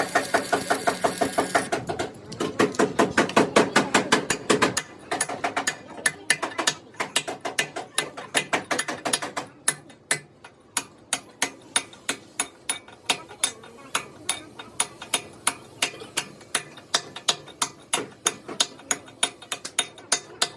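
A long run of sharp, evenly spaced metallic clicks, about six a second for the first five seconds, then slowing to about three a second.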